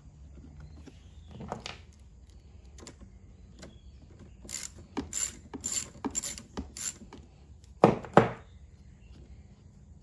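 A socket ratchet clicking in about six short strokes, roughly two a second, as a 10 mm nut is backed off a small generator's carburetor mounting stud. A single knock comes before the clicking, and two loud, sharp knocks come a second after it.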